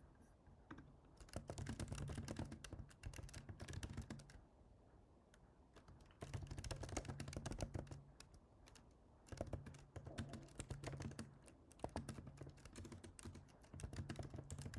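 Typing on a computer keyboard: about five bursts of rapid keystrokes, each one to three seconds long, with short pauses between.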